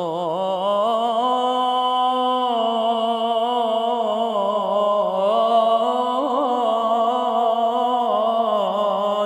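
A solo voice chanting a slow, ornamented melody in long unbroken held notes that waver and turn in pitch, an intro chant ahead of a Ramadan sermon.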